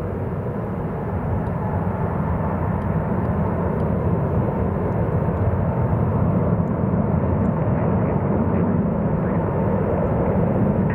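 Jet airliner engines at takeoff thrust, a broad, loud noise that builds over the first couple of seconds and then holds steady.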